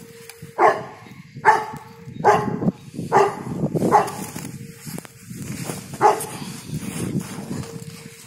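A dog barking: five barks about a second apart, then one more after a short pause.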